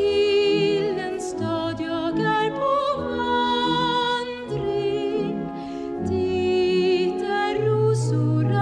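Music: a solo voice singing a slow song with a wide vibrato over soft, sustained accompaniment.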